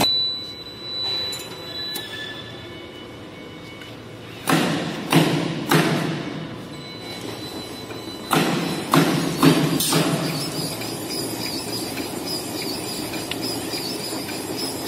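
Pneumatic cylinders on a semi-automatic maxi-roll cutting machine firing as its controls are worked: two sets of three quick thuds, each with a burst of air, over a steady machine hum.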